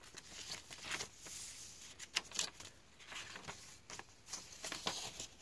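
Paper rustling as the thick, mixed-paper pages of a handmade junk journal are turned and handled by hand, in a series of brief rustles and soft flicks.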